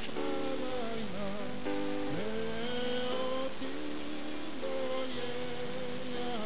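A mixed choir singing a slow song in long held notes, with guitar accompaniment.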